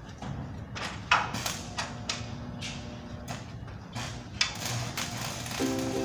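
A few scattered knocks and thuds at uneven intervals over a low rumble, then background music with a plucked-string sound begins near the end.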